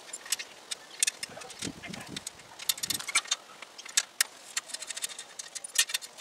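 Irregular metallic clicks and clinks of a hand tool working the front axle nuts of a bicycle, loosening the front wheel and fender, with duller knocks from the wheel being handled.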